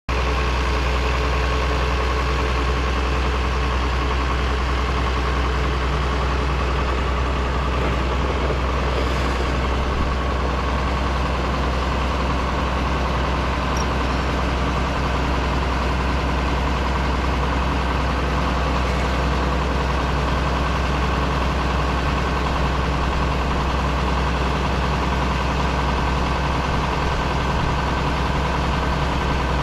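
Truck engine idling steadily, a deep even hum that neither rises nor falls.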